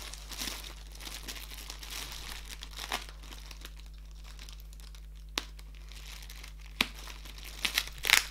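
Plastic mailer bag and brown packing tape crinkling and rustling as the package is worked open by hand with a pocket knife. A few sharp snaps come in the second half, a cluster of them near the end the loudest.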